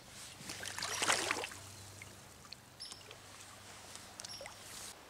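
Water splashing in a brief burst about a second in, then the low steady sound of the stream's flowing water.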